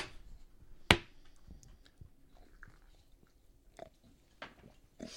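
Quiet sipping, swallowing and mouth sounds of people tasting beer, with a single sharp click about a second in and a few soft clicks later on.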